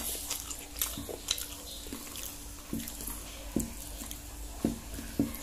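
Close-up chewing and wet mouth smacks of someone eating rice and fried fish by hand, a short click or smack every half second to a second, over a faint steady hum.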